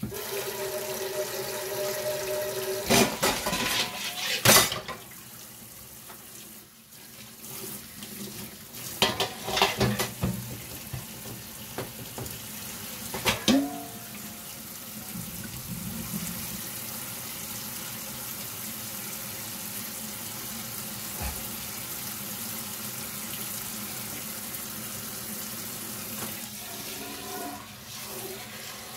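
Kitchen tap running steadily into a sink, coming on suddenly. A few sharp knocks and clatters of kitchenware sound in the first half, one ringing briefly like a struck metal pot.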